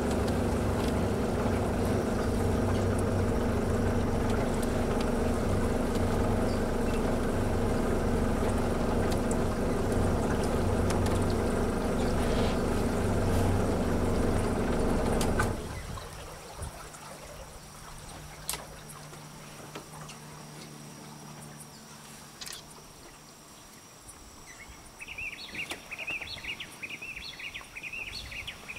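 Boat engine running steadily, then stopping abruptly about halfway through. After that the water is much quieter, with a few faint clicks and, near the end, a rapid series of high chirps.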